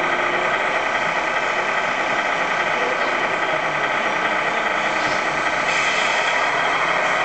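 Radio-controlled scale semi trucks running, a steady engine-like drone with many held tones, brightening slightly about five and a half seconds in.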